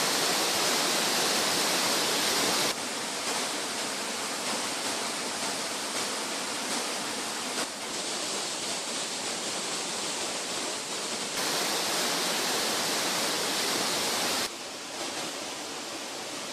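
Steady rush of the Pliva waterfall's falling water. The level drops suddenly about 3 s in, rises again past the middle and drops once more near the end.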